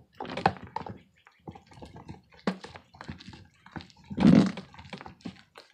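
Homemade glue slime being squished and kneaded by hand: irregular wet squelches and sticky smacks, with one louder squelch about four seconds in.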